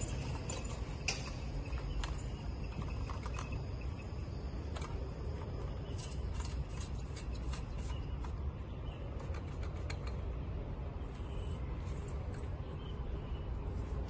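Telescopic cleaning pole being extended and handled, with scattered sharp clicks from its sliding sections over a steady low outdoor rumble.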